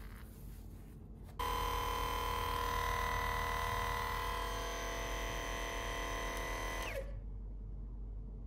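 Percussive massage gun running: a steady motor whine of several tones that starts abruptly about a second and a half in and stops about a second and a half before the end, its pitch dropping as it winds down.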